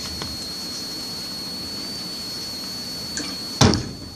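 Steady hiss with a thin, high, unchanging whine, and a sharp knock near the end, with a smaller click just before it.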